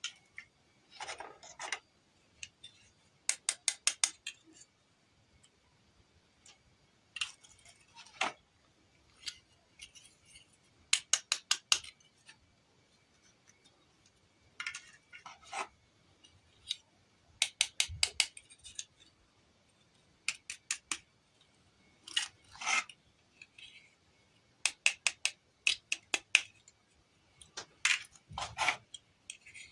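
Scissors snipping in quick runs of five or six short cuts every few seconds, with rubbing and handling sounds between the runs.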